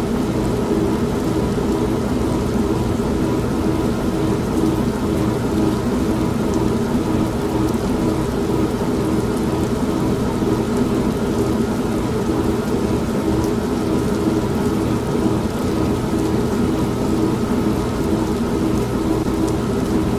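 Old manual washing machine running with a steady, evenly pulsing motor hum, layered with continuous heavy rain and a low rumble of thunder.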